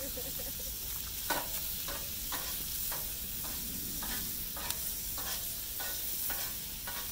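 Chopped peppers, onion and garlic sizzling in butter on a Blackstone steel griddle top, with a metal spatula scraping and tossing them about twice a second.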